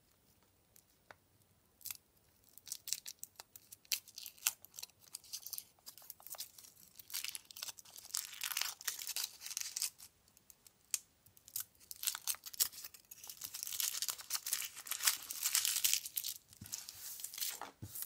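Thin foil wrapper being peeled and torn off a Kinder Surprise chocolate egg by hand. It crinkles and tears in irregular crackly bursts, scattered at first and denser and louder in the second half, stopping just before the end.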